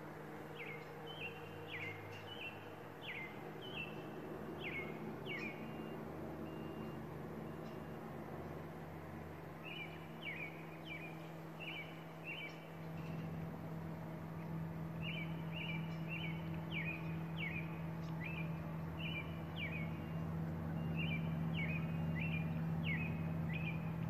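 A songbird singing repeated phrases of short down-slurred whistles, in three bouts with pauses between, over a steady low hum that grows louder about halfway through.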